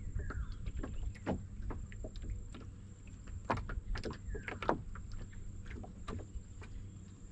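Small waves lapping against an aluminium boat hull in irregular light knocks and taps, over a steady low rumble.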